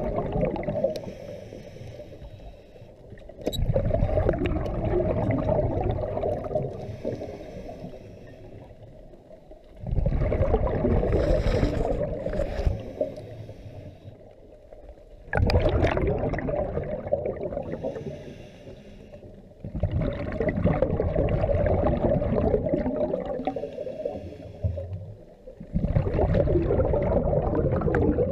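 Scuba diver breathing through a regulator underwater: a gurgling surge of exhaled bubbles about every five to six seconds, with quieter stretches between breaths.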